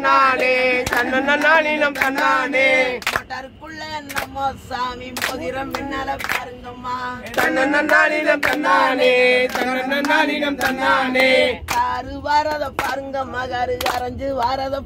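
A group singing a Tamil kummi folk song in chorus, with steady hand claps about twice a second keeping the beat. The singing thins out for a few seconds in the middle while the clapping keeps on, then comes back in full.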